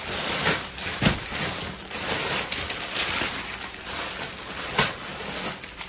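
Plastic packaging of a ladies' suit rustling and crinkling as it is pulled from a pile and unwrapped by hand, with a few sharper crackles and a soft thump about a second in.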